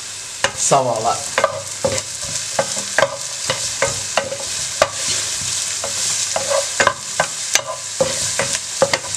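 Chopped onions frying in hot oil, sizzling steadily while being stirred, with frequent sharp knocks and scrapes of the stirring utensil against the pan.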